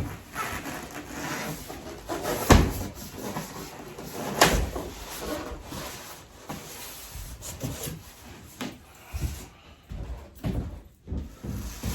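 Packing material and parts being handled while a table saw is unboxed: rustling and scraping with scattered knocks, the two loudest sharp knocks about two and a half seconds in and two seconds after that.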